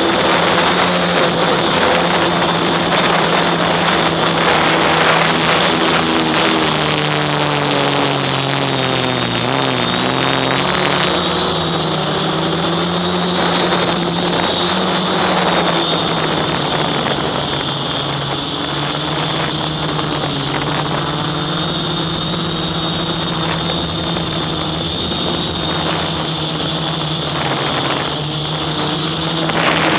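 Quadcopter's electric motors and propellers buzzing steadily, picked up by its own onboard camera in flight, with a thin high whine over the top. The motor pitch sags and climbs back briefly about eight to ten seconds in as the throttle changes.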